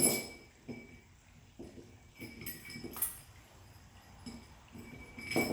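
Rain chain cups and links clinking and knocking together as they are hooked on and handled: scattered small taps with short ringing clinks, the loudest one about five seconds in.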